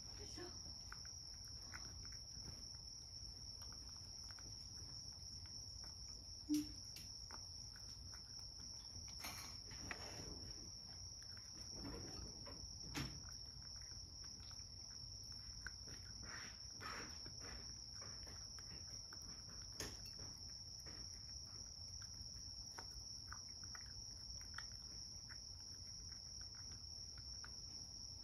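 Cat eating from a bowl: faint chewing and small scattered clicks, a few louder ones, over a constant high-pitched whine.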